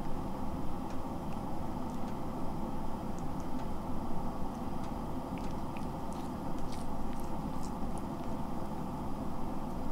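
Domestic cat chewing and licking a toy: faint, irregular small wet clicks, thickest in the middle and later part, over a steady low background hum.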